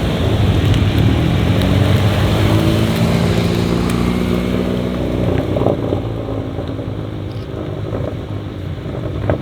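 Hyundai i30N's turbocharged four-cylinder engine running loudly through its exhaust. Its pitch shifts in the first half and then eases off, with a few sharp pops in the second half.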